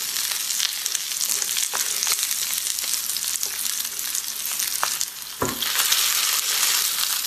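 Oil sizzling steadily as corn-flour-coated yellow croaker pieces pan-fry on high heat, with light clicks of chopsticks against the pan as the pieces are flipped. About five seconds in there is a dull knock as the pan is lifted and shaken, and after it the sizzling is louder.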